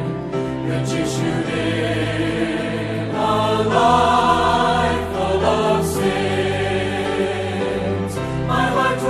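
Slow hymn music of sustained, choir-like chords with no clear words. It swells about three seconds in and again near the end.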